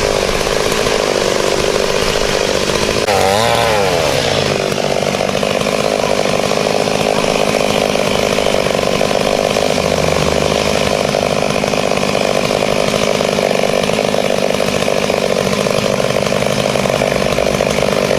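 Chainsaw running steadily under load, cutting through the trunk of a fallen leucaena tree, with a brief swing in engine pitch about three seconds in.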